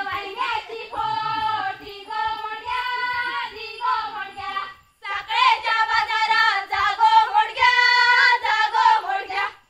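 A group of women singing a Konkani folk song together in unison, with held and sliding notes. The singing breaks off for a moment about halfway through, resumes, and stops near the end.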